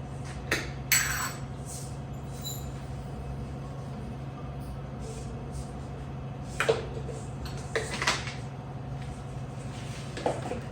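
Occasional sharp clinks and knocks of kitchen utensils, a spoon and tumbler, as spices are measured out. There are two in the first second and a few more later, over a faint steady low hum.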